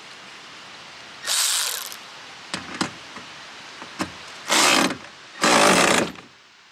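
Cordless power ratchet running in three short bursts, with a few clicks between them, as it tightens a nut on the bolt holding a mounting bracket to a solar panel's aluminium frame.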